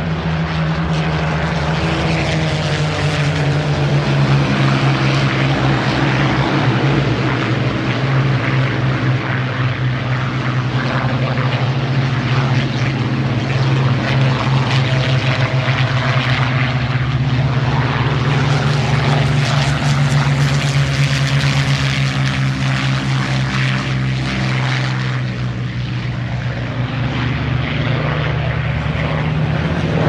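Rolls-Royce Merlin V12 engines of Supermarine Spitfires flying low past as a steady deep propeller-engine drone. It swells louder and harsher as a Spitfire passes close about two-thirds of the way through, then eases off.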